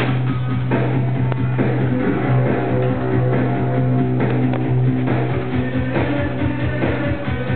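Background rock music with guitar: held notes over a sustained low bass note, with a steady low beat.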